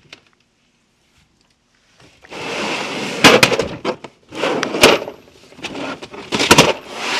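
After about two seconds of near silence, a socket set's case is handled and its metal sockets rattle and clatter, with several sharp knocks, as someone searches it for a 26 mm socket.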